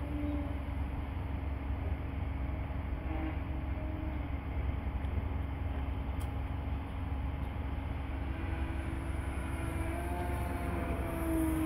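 Electric motor and propeller of an Extreme Flight Edge 540 48-inch RC aerobatic plane whining in flight, its pitch rising and falling with the throttle near the end, over a steady low rumble.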